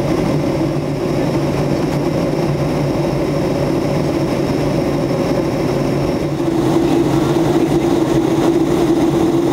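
Airliner cabin noise in flight: the steady rush of the engines and airflow with a low hum. About six and a half seconds in it gets slightly louder and a steady drone comes up, a change in the airliner's configuration or engine power during the descent.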